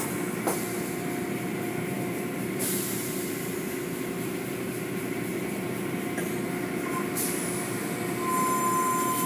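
Automatic car wash tunnel, heard from inside a car: steady running of the wash machinery with water spray and cloth strips. A brighter hiss of spray comes in for a few seconds in the middle, and a steady high tone starts near the end.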